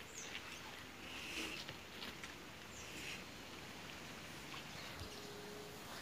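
Faint forest ambience: a few short, high bird chirps over light rustling in dry leaf litter.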